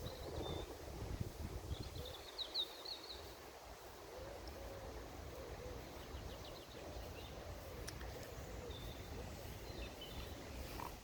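Songbirds singing outdoors: short, high trills, the clearest about two seconds in and fainter ones later, over a steady low outdoor rumble.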